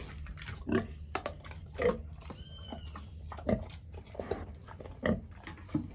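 A pig eating feed from a concrete trough, making short, irregular mouth noises about once a second.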